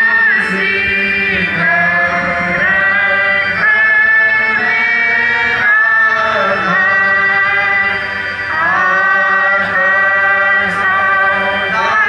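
Hymn singing with long held notes that slide smoothly from one pitch to the next.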